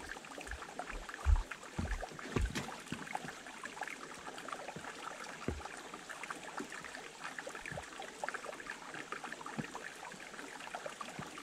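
A small woodland stream trickling and gurgling over rocks, a steady bed of fine crackling clicks, with a few soft low thumps, the strongest about a second in.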